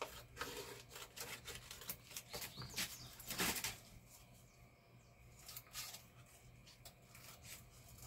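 Scissors snipping through a sheet of paper, with the paper rustling as it is handled. The snips and rustles are thick for about the first four seconds, with the loudest rustle about three and a half seconds in, then thin out to occasional light clicks.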